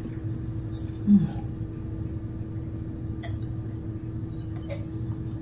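Steady low electrical hum of a quiet room, with a short hummed "mm" about a second in and a few faint clicks and sips as a drinking glass is lifted and drunk from.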